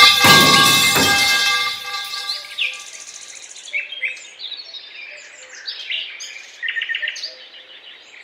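A falling metal pipe's clang rings and dies away over about two seconds, with a second, smaller clang about a second in. Then small birds chirp and sing.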